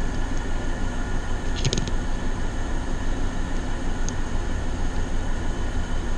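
Steady hum of air conditioners running, with a short cluster of light clicks about a second and a half in and one more click about four seconds in.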